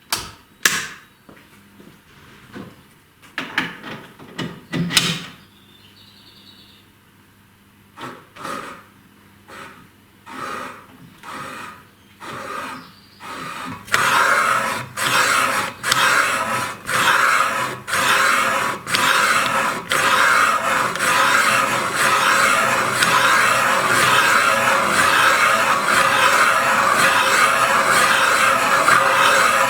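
Valve seat cutter scraping metal as it cuts an exhaust valve seat in a cylinder head. Scattered knocks and clicks come first; about halfway through a steady scraping begins, pulsing about once a second at first, then running continuously.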